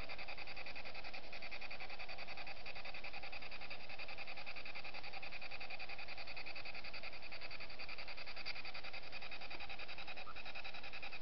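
Spirit box sweeping rapidly through radio stations: a steady hiss of radio static, chopped many times a second.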